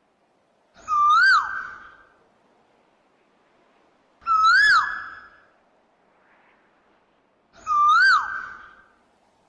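Asian koel calling three times, each call a clear whistled note about a second long that swoops up and then drops, about three and a half seconds apart.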